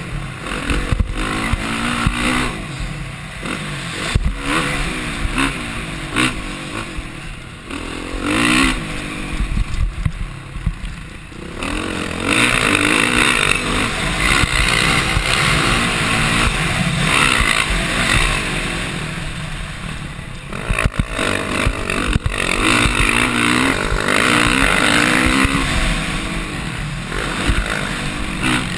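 Motocross dirt bike engine revving up and falling back again and again as the rider works the throttle and gears around the track, with the rush of wind on the microphone swelling strongly about halfway through and scattered knocks and clatter from the bike over the rough ground.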